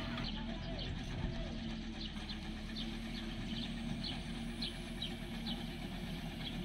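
A heavy machine's engine running steadily with a low hum, most likely the truck crane holding the pontoon. Short high chirps repeat about twice a second over it.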